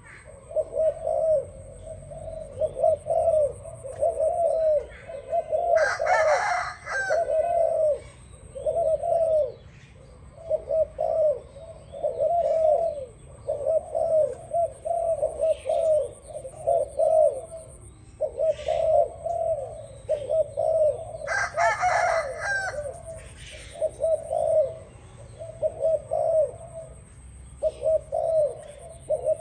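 Doves cooing over and over, one low coo after another with hardly a pause. Twice, about six seconds in and again about twenty-two seconds in, a louder, higher bird call cuts through.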